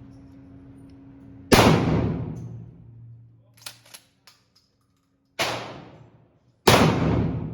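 12-gauge pump-action shotgun firing three shots, about a second and a half in, near the middle and about a second later, each with a long echoing tail. Between the first and second shot come a few quick clacks, typical of the pump being worked.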